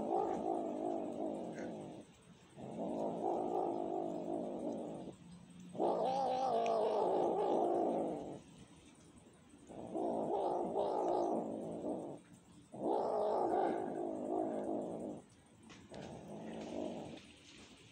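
Kitten growling in long, wavering moans while it chews at food, six drawn-out calls of about two seconds each with short pauses between. This is the low yowling growl a cat makes to guard its food as it eats.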